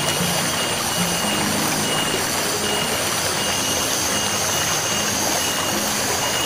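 Background music with a stepping low melody and a short high note repeating about every 0.7 s, over the steady rush of a flowing stream.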